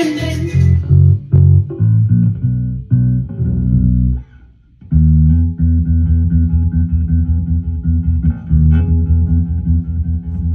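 Electric bass guitar played through a Gallien-Kruger Legacy 210 bass combo amp: low plucked notes, a short break a little after four seconds in, then fast, even repeated picked notes.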